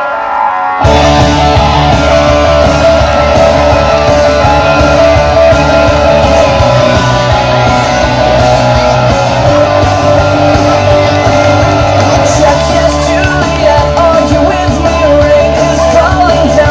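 Rock music played loud, with electric guitars, drums and singing. A held chord gives way to the full band coming in about a second in, and it then plays on without a break.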